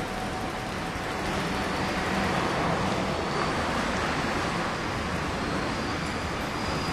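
Steady urban background noise: an even wash of traffic-like sound with no single distinct event standing out.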